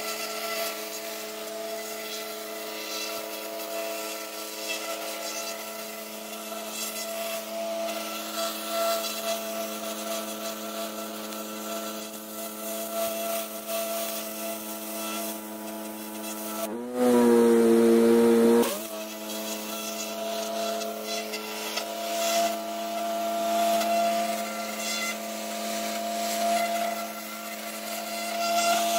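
Pressure washer running steadily, with the hiss of its high-pressure jet spraying across paver tiles. About 17 seconds in, the machine's note shifts and grows louder for about two seconds, then settles back.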